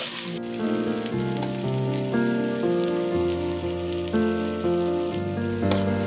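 Soft background music of sustained keyboard-like chords changing every second or so, over a faint sizzle of food frying in a wok, with one light spatula click near the end.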